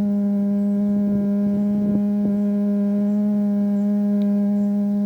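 A woman's voice humming an om: one long, steady note held at a single low pitch, part of a meditative heart-opening hum.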